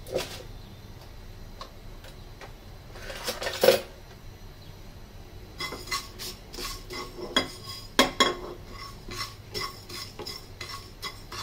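Wooden spatula stirring and scraping whole panch phoron seeds and dried red chillies around a dry non-stick frying pan as they are dry-roasted. A couple of sharp knocks against the pan come in the first few seconds, then a quick run of scrapes and taps fills the second half.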